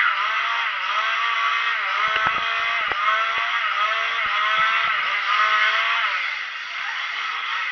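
Ghost train ride car running along its track: a steady mechanical whine of many tones, with irregular clatters and knocks from the wheels and rails.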